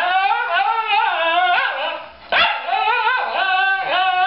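Shiba Inu–American Eskimo mix dog 'talking' in a run of drawn-out, wavering howl-like yowls, demanding its dinner.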